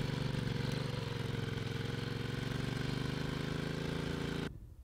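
Motorcycle engine running at a steady speed, an even drone with a fast regular pulse, which cuts off suddenly near the end.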